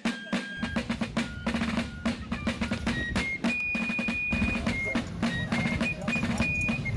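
Fife-and-drum style music: a snare drum playing rapid rolls and strokes under a high, held whistling melody that steps from note to note. A low rumble comes in about half a second in.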